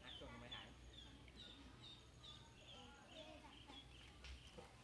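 Domestic chick peeping faintly and over and over, short high peeps about two a second.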